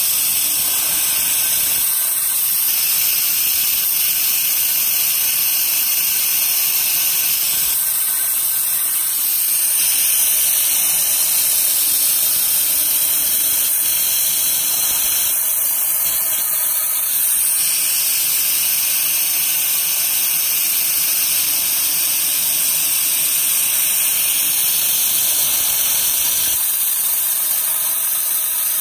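Hardinge CNC lathe turning a tenon on an air-rifle barrel, heard as a loud, steady hiss of coolant spraying onto the work. The hiss shifts in tone every few seconds.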